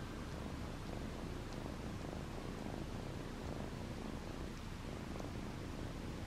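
Scottish Fold kitten purring quietly and steadily, a low rumble, with a few faint ticks from licking its paw.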